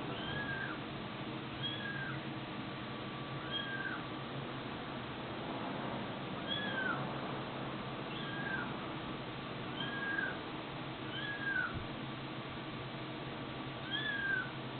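Kitten mewing over and over: short, high meows that rise and fall in pitch, about one every one to two seconds.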